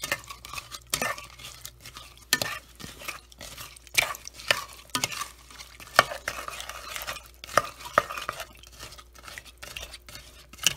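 A black spoon stirring chopped dates in water and sugar in a stainless steel saucepan, knocking and scraping against the pan in irregular strokes as the date filling cooks.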